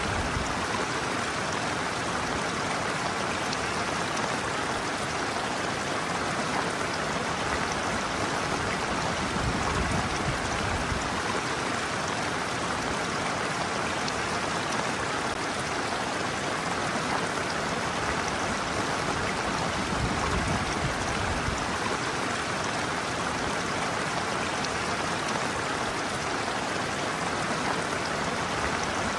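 Stream water running and splashing over a person's feet, with a steady even rushing.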